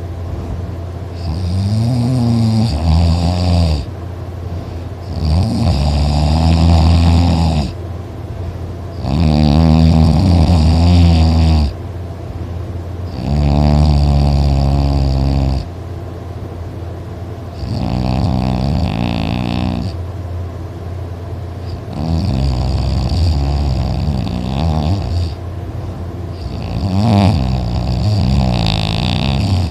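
A person snoring very loud: a long, pitched snore on each breath, about every four seconds, seven in all, with quieter breathing between.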